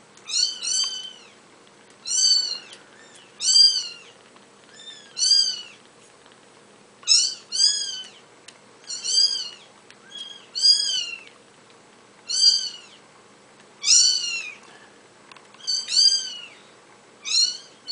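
Very young kitten mewing: short, high-pitched mews in twos and threes, repeating every second or two.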